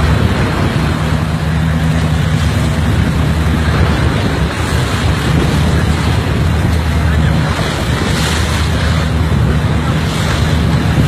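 Wind buffeting the microphone and choppy sea water rushing and slapping around a small boat, over the steady low drone of a boat engine.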